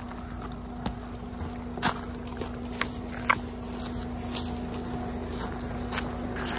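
Tyres of a Mahindra Scorpio N crunching and snapping over dirt, stones and twigs as the SUV crawls slowly, in irregular sharp clicks, the loudest a little over three seconds in. Under them runs the steady low hum of its 2.2-litre diesel engine at low revs.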